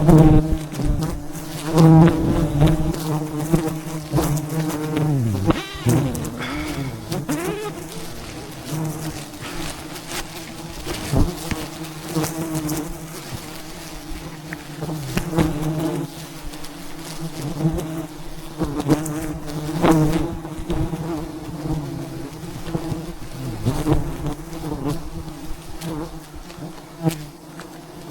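Swarm of wild bees buzzing at the hive, a loud, dense steady hum, with single bees rising and falling in pitch as they fly close past, about five to seven seconds in. Scattered clicks and knocks sound over the buzzing.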